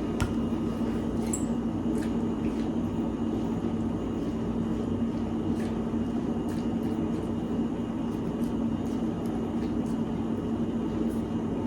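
Steady machine hum, like a fan or air-conditioning unit, holding one constant low tone throughout, with a few faint light ticks.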